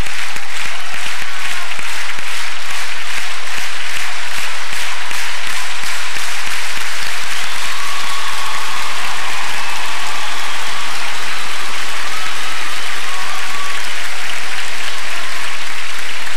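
Large audience applauding. For the first several seconds the clapping falls into a steady beat in unison, then it turns into general applause.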